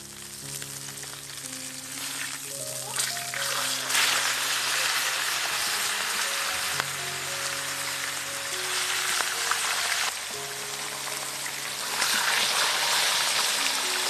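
Fish fillets sizzling as they fry in oil in a grill pan, turned with metal tongs. The hiss grows louder about four seconds in and again near the end, with background music underneath.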